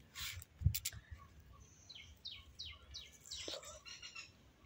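Faint bird chirping: a quick run of about five short falling notes about two seconds in, then a brief jumbled call. A soft knock, just under a second in, is the loudest moment.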